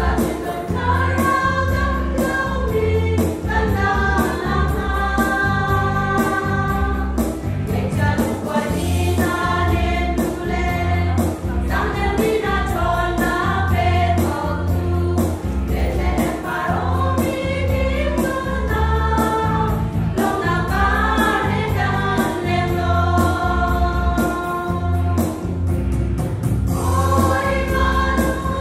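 A women's choir singing a Chin-language gospel song together, over instrumental backing with a steady bass line and beat.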